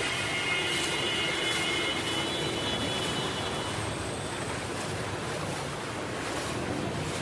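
Steady rushing hiss of heavy rain and vehicles on a waterlogged road, with a high steady tone fading out over the first few seconds.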